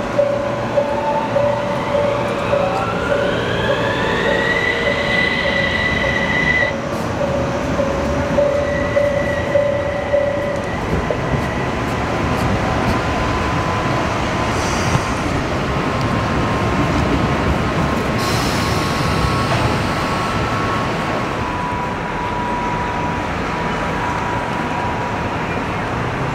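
Kumamoto city tram running on its street track: its motors whine, rising in pitch over about three seconds as it gathers speed, then hold steady and cut off about seven seconds in. A steady higher tone runs through the first ten seconds over the rumble of the running tram.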